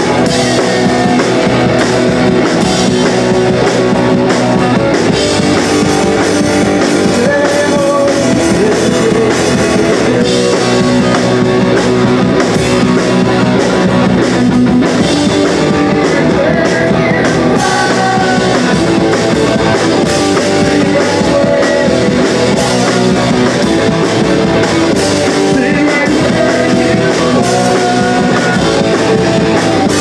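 Live rock band playing loud and without a break: electric guitars through amplifiers and a drum kit.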